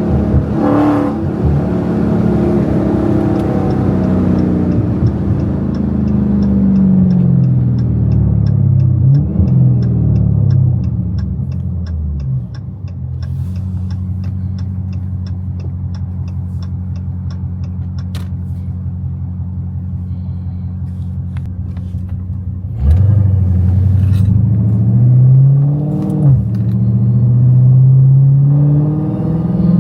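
Catless Dodge Hellcat's supercharged 6.2-litre Hemi V8 exhaust, loud. The engine note falls as the car slows, then holds a steady low drone for about ten seconds with a light regular ticking above it. About 23 seconds in it goes suddenly to hard acceleration, the pitch climbing, dropping at a gear change and climbing again.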